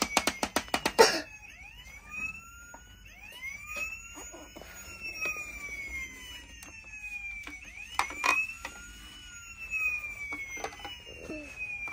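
Happyland Lights & Sounds toy ambulance playing its electronic siren: a wail that swoops up and then slides slowly down, repeating every couple of seconds. A fast run of clicks in the first second, and a few knocks of plastic being handled.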